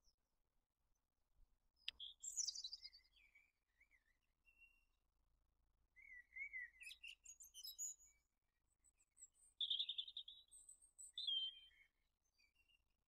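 Quiet birdsong: quick, high chirping and warbling phrases from small songbirds in three bursts, about two, six and ten seconds in.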